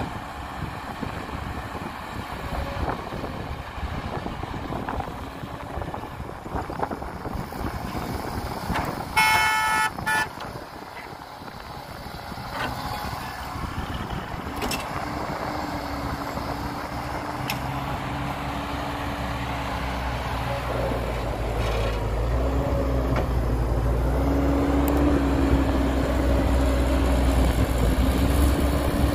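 Heavy diesel machinery working, with a horn sounding once for about a second about a third of the way in. In the second half a diesel engine settles into a steady drone that grows louder toward the end.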